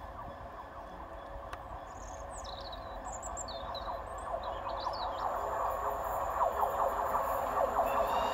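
An approaching train on the adjacent line, GWR Castle class steam locomotive 5043 Earl of Mount Edgcumbe at speed, growing steadily louder as a rising rail hum and rumble. Birds chirp a few times in the middle.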